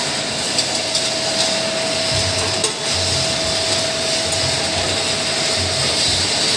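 Automatic shisha charcoal briquette packing machine running: a steady mechanical hum with a constant tone, a low thud about once a second as it cycles, and a few light clicks.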